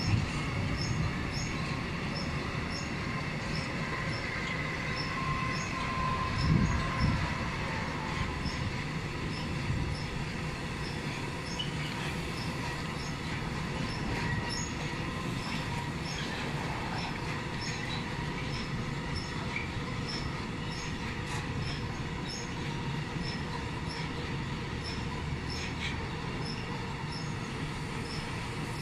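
Container freight train's flat wagons rolling past: a steady rumble of wheels on the rails, with faint wheel squeal at times and a louder knock about six and a half seconds in. Behind it, a faint high tick repeats at an even pace.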